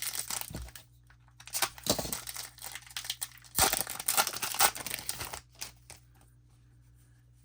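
Trading-card pack wrapper being torn open and crinkled by hand, in three spells of crackling.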